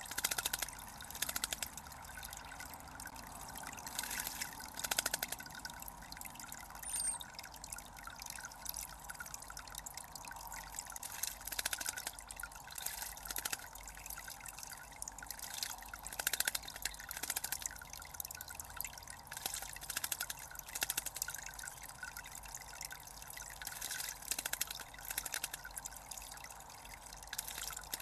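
Water trickling steadily from a small spout into a stone bird bath, with irregular splashing from a European robin and a blackbird bathing in it.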